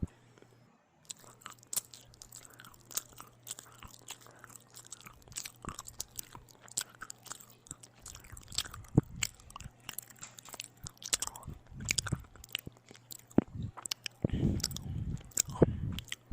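Close-miked eating of bread with ham and tomato: repeated bites and chewing with many small crunchy, wet mouth clicks, and louder, fuller bites near the end.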